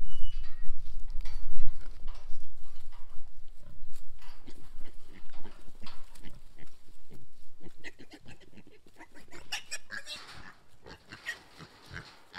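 Piglets grunting and squealing around feed on the ground, with short irregular calls throughout and higher, brighter squeals in the last few seconds. A low rumble sits under the first couple of seconds.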